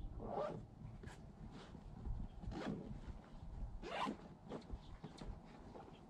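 A series of short, scratchy rasps like a zipper being pulled, about seven of them at irregular intervals, the strongest near the middle.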